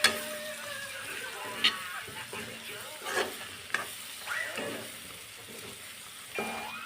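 Food frying and sizzling in a pan while being stirred, with a spoon clinking against the pan several times.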